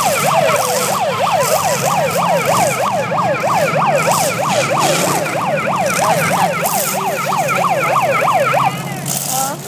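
Electronic siren on a fast yelp, its pitch rising and falling about three to four times a second over a steady low engine rumble; the siren cuts off near the end.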